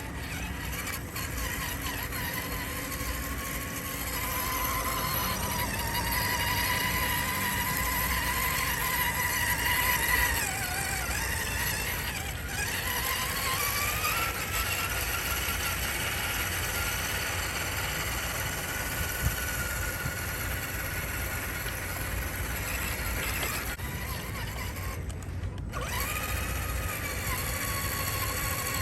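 RC scale crawler truck's electric motor and gearbox whining as it drives, the pitch rising and falling with the throttle, over a low steady rumble. The whine stops for about two seconds near the end, then picks up again.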